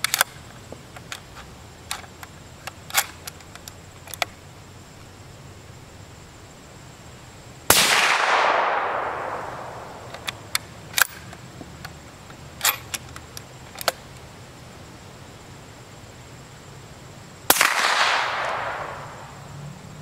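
Two shots about ten seconds apart from a .308 CZ 557 bolt-action rifle fitted with a Q Half Nelson suppressor. Each is a sharp crack followed by an echo that fades over about two seconds. Between the shots come clusters of metallic clicks from the bolt being worked.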